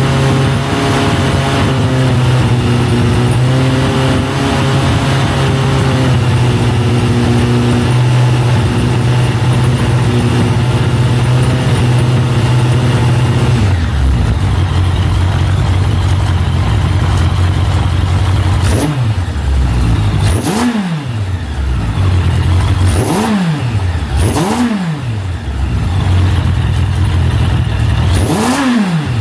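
Suzuki Bandit 1200S inline-four engine idling steadily; the idle settles lower about halfway through. It is then revved with several quick throttle blips, each rising and falling back to idle.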